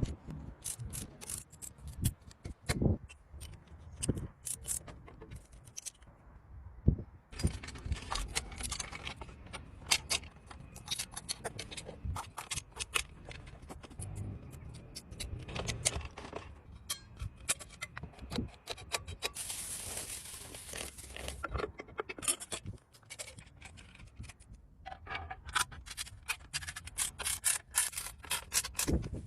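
Hand work on bicycle metal parts: scraping and rubbing, with many clicks and light knocks of tools, and a short hiss about twenty seconds in.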